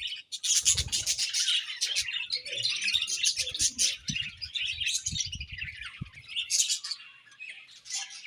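Budgerigars chirping and warbling together, many quick overlapping chirps, with soft low taps through the middle.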